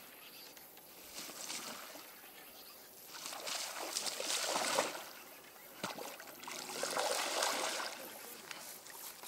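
Water splashing as a hooked snakehead thrashes at the surface while being reeled in, in two bouts about three and six seconds in.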